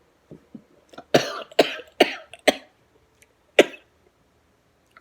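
A man coughing hard, with four loud coughs in quick succession and then one more about a second later. He is coughing because food went down the wrong way while he was eating soup.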